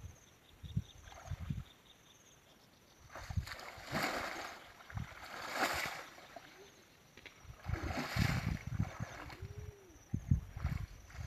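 Water splashing and sloshing in three bursts, with low thumps and knocks in between.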